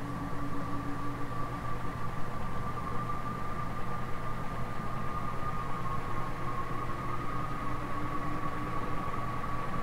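Golden Fan model 168 industrial ceiling fan running: a steady motor hum with a constant high-pitched whine over it.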